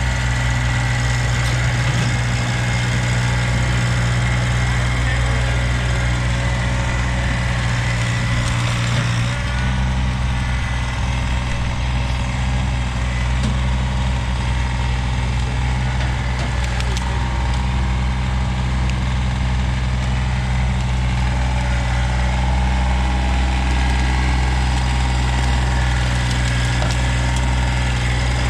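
Kubota BX-series compact tractor's small three-cylinder diesel engine running steadily while the tractor drives and carries a stump in its front loader. The engine note shifts slightly about nine seconds in.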